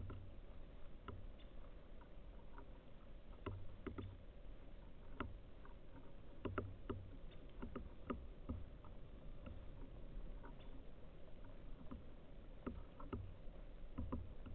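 Irregular light taps and clicks, scattered and uneven, with soft low thumps among them: birds pecking and landing at a feeder.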